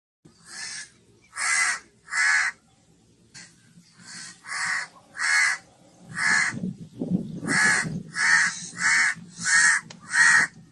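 Crow cawing repeatedly: about a dozen short, harsh caws, roughly one every 0.6 to 0.8 seconds.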